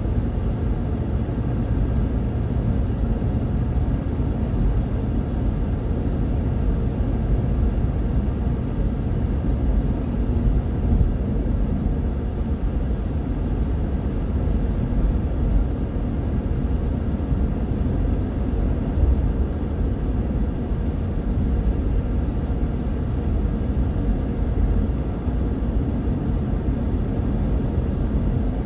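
Steady rumble of a car driving at a constant speed on a paved road, engine and tyre noise heard from inside the cabin.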